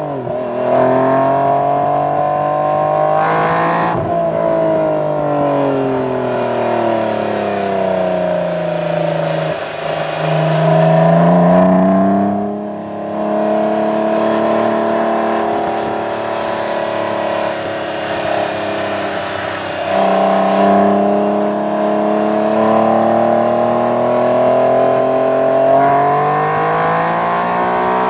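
Acura NSX-T's 3.2-litre V6 heard close to the tailpipes through a Taitec GT Lightweight aftermarket exhaust while driving. The exhaust note climbs under acceleration, falls away slowly as the revs drop, then climbs again. It dips sharply about twelve seconds in, holds steady, and rises once more near the end.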